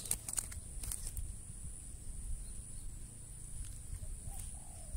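Pondside outdoor ambience: a steady, high-pitched insect drone over a low rumble of wind on the microphone, with a few sharp clicks in the first second.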